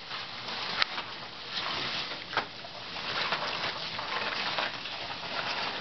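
Person crawling on his belly across a frozen pool: the ice creaks under his weight, with sharp cracks about a second in and again near two and a half seconds, over the steady scraping and rustling of a wetsuit sliding on the ice.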